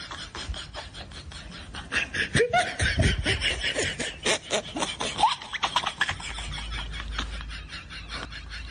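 A man laughing in quick, breathy bursts, with low wind rumble on the microphone.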